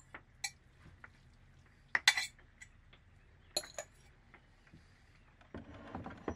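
Metal fork clinking and scraping against a glass bowl as shredded chicken is scraped out of it, with a few sharp clinks, the loudest about two seconds in. Near the end comes a short scrape.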